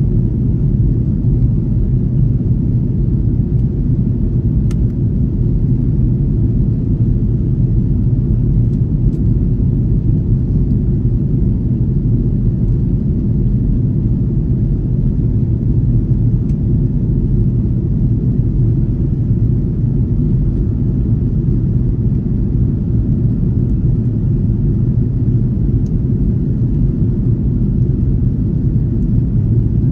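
Steady low rumble inside the cabin of an Airbus A330-300 airliner in flight: airflow and Rolls-Royce Trent 700 engine noise, unchanging throughout, with a few faint ticks.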